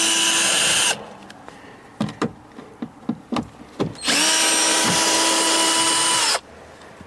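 Cordless electric screwdriver running at a steady speed, backing out a car door speaker's mounting screws. It runs twice: once stopping about a second in, then again from about four seconds to six and a half, with a few small clicks and knocks in between.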